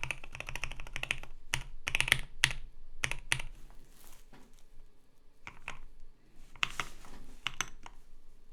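Typing on a KBD67 Lite mechanical keyboard with lubed Durock L7 linear switches, a polycarbonate plate and PBT keycaps. A fast run of keystrokes for about the first second gives way to slower, scattered key presses.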